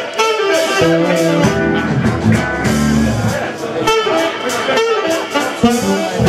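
Live band playing a blues-jazz number, with an alto saxophone carrying the melody over electric guitar, bass and drums.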